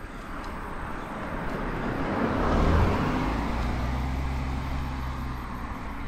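A motor vehicle passing: tyre and road noise swells to a peak about halfway through and then fades, with a low steady engine hum for a few seconds around the peak.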